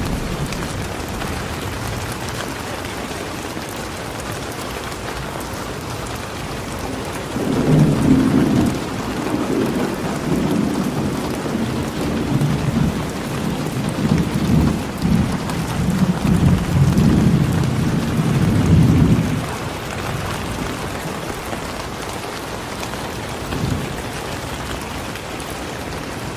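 Steady rain falling, with a long low rumble of thunder rolling through the middle for about twelve seconds, then dying away to rain alone.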